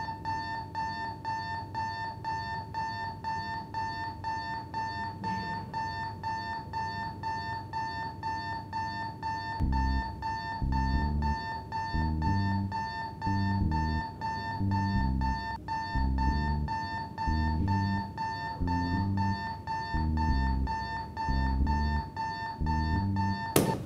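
Alarm clock beeping, a high electronic tone pulsing rapidly without pause. About ten seconds in, music with a low bass line comes in under it, and near the end a few sharp knocks sound.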